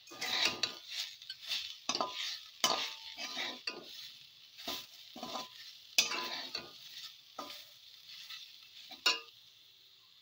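Metal slotted spatula stirring and scraping chopped radish around a hot karahi, with a light sizzle of the food frying. Irregular scrapes come about once or twice a second, quieter toward the end apart from one sharp scrape about nine seconds in.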